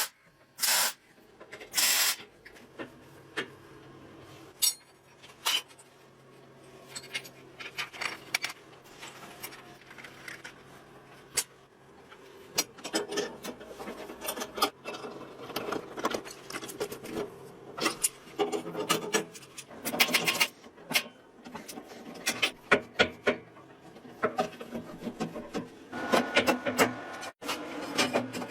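Scattered clicks, knocks and rubbing of hand work with tools and parts, irregular and busier in the second half.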